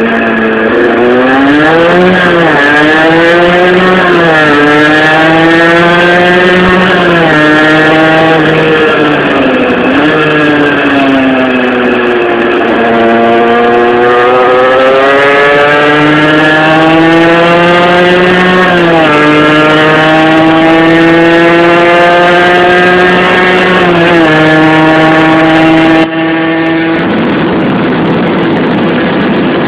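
Tuned 50cc two-stroke engine of a Rieju RS2 Matrix under way, with a Top Perf cast-iron kit, a 21 mm Dell'Orto carburettor and a homemade exhaust with a Conti 125 silencer. The pitch repeatedly climbs as it revs and then drops back, with longer pulls in the middle. About 26 seconds in the sound changes abruptly and the pitch then holds nearly steady.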